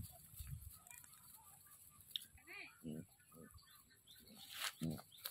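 Faint chicken clucks with a few small-bird chirps: short calls spread out, with a louder pair near the end.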